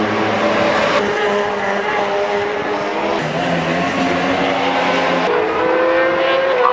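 Superbike racing motorcycle engines running at high revs as bikes pass along the track, the engine note shifting in pitch twice.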